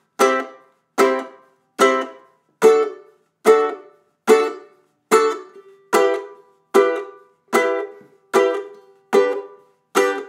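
Ukulele strummed in single even strums, about one every 0.8 seconds, each chord left to ring and fade before the next.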